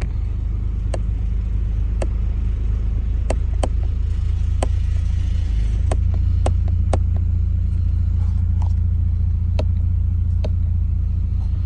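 Mercedes E350's 3.5-litre V6 idling in drive, with about ten sharp clicks of the steering-wheel shift paddles being pulled. The idle rumble gets a little louder about six seconds in.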